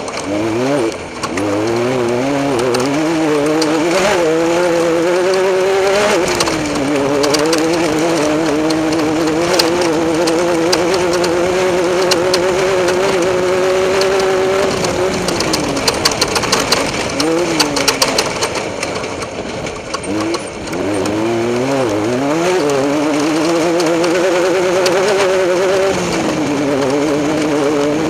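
Off-road race vehicle's engine pulling hard, climbing in pitch through shifts, then holding a steady high pitch. About 15 s in the throttle comes off, with a patch of sharp knocks and bangs, and it picks up and climbs again from about 21 s.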